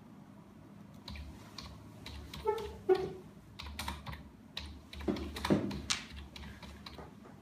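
Typing on a computer keyboard: irregular keystrokes starting about a second in, with a brief pitched sound around three seconds in.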